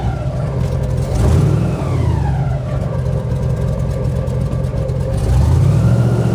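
Motor engine running with a low steady drone, its pitch sliding down and later back up, louder about a second in and again near the end.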